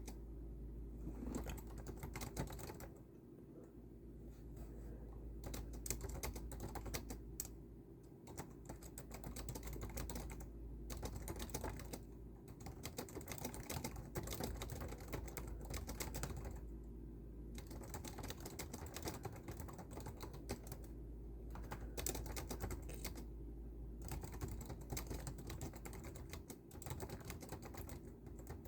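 Fast typing on a computer keyboard, in runs of rapid key clicks broken by short pauses every few seconds, over a steady low hum.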